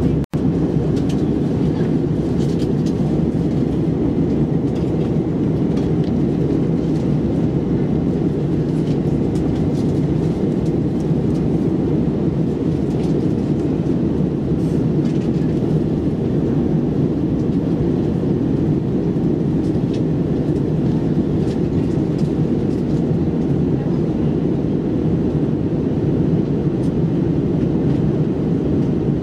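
Steady low drone inside the cabin of an Airbus A321-200 airliner in cruise: engine and airflow noise heard from a seat by the wing. It cuts out for an instant just after the start.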